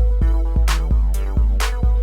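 Background music: an electronic hip hop beat with a deep booming bass and a drum-machine kick and snare, a hit about every half second over held synth tones.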